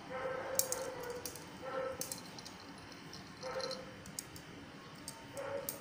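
Kittens mewing, four short calls in about six seconds, with light clicks and rattles scattered between them.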